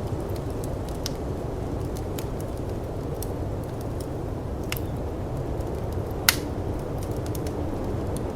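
Snowstorm wind as a steady low rush, with a wood fire crackling over it: scattered small pops and one louder pop about six seconds in.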